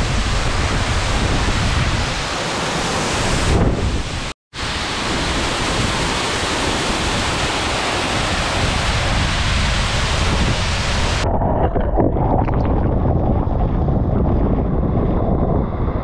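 Loud, steady rushing of a waterfall heard close up, with spray and wind buffeting the microphone. The sound cuts out for a moment about four seconds in, and after about eleven seconds it turns duller and loses its hiss.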